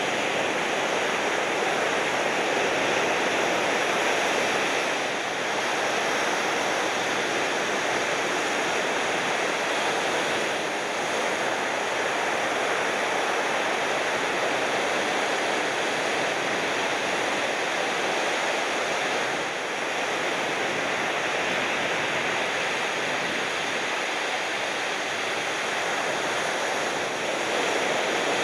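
Ocean surf: a steady rush of breaking waves with no clear single crashes.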